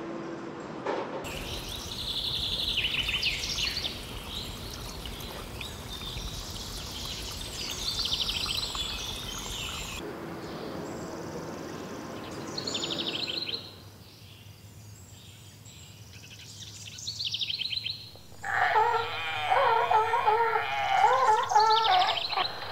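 Birds chirping in short, repeated phrases over a steady background noise. The background drops away about two thirds of the way through, and in the last few seconds a louder, wavering pitched sound comes in over it.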